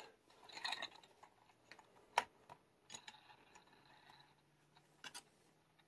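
Faint scattered clicks and taps from a die-cast Hot Wheels toy car being handled, one a little sharper about two seconds in, with a faint steady hum starting about three seconds in.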